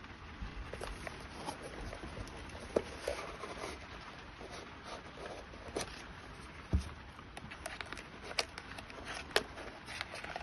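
Hands handling small RC car parts and a Hobbywing speed controller: irregular light clicks, taps and rustling, with a few sharper knocks.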